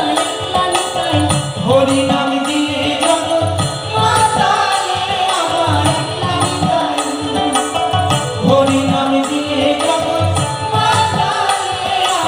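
A man and a woman singing a Bengali folk song into microphones over a steady hand-drum beat, played loud through a stage PA.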